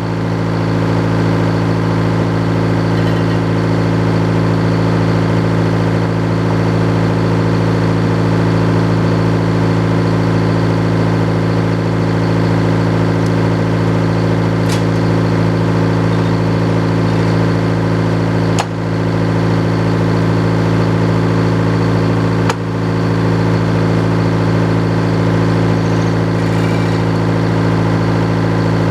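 Sawmill engine running steadily, with two short knocks, the first about two-thirds of the way through and the second about four seconds later.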